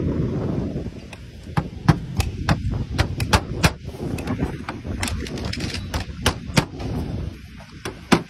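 Slater's hammer driving nails to fix roof slates: sharp strikes in short runs, a few a second, with a low rumble on the microphone in the first second.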